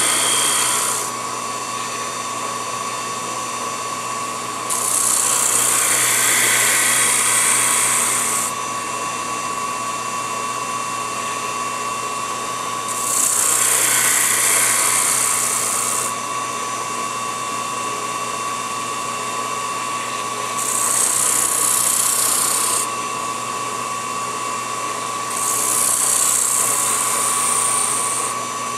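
Small lathe motor running with a steady whine. Five times, for two to four seconds each, a loud hiss rises over it as a wooden piece is pressed against the spinning sanding spindle to shape it.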